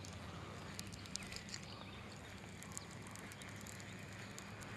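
Light rain just starting: faint, irregular raindrop ticks over a quiet pond-side background.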